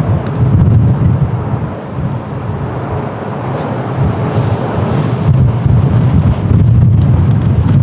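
Strong gusty wind buffeting the microphone: a loud, uneven low rumble that swells and dips with the gusts.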